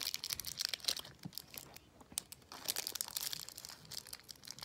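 Candy wrapper crinkling as it is handled and opened: a rapid patter of small crackles that thins out about a second in and picks up again near the end.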